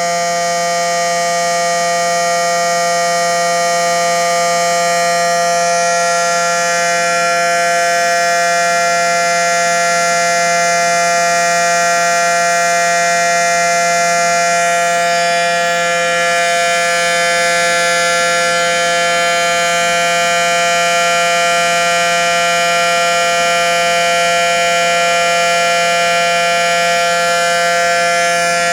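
SD10 outdoor warning siren sounding a steady two-note tone at full speed during its weekly test, holding the same pitch without rising or falling.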